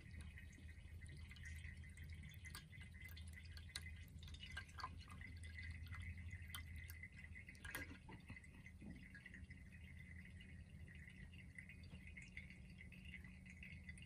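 Faint water trickling and dripping from the spouts of a ceramic cat drinking fountain, over the low steady hum of its motorized pump, with a few small clicks scattered through.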